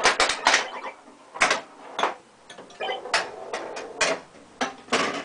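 Bally Star Trek pinball machine in play: an irregular run of sharp mechanical clacks from the flippers, bumpers and other playfield solenoids, with short electronic tones from the game's sound board a few seconds in.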